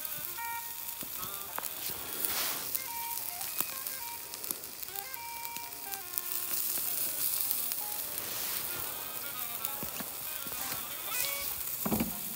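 Steak sizzling on the grill grate of a Firebox stove over hot coals, a steady hiss. Background music with a simple melody plays alongside.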